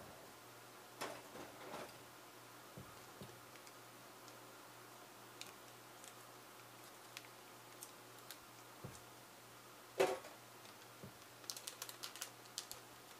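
Scattered light clicks and taps of small parts and tools being handled on a workbench, with one louder knock about ten seconds in and a quick run of sharp clicks near the end. A faint steady hum sits underneath.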